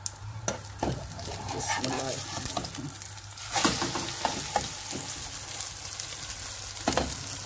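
Omelette frying in oil in a non-stick pan, sizzling, with a slotted spatula scraping and tapping against the pan as the omelette is turned over. About three and a half seconds in, the sizzle grows suddenly louder as the raw side meets the hot pan.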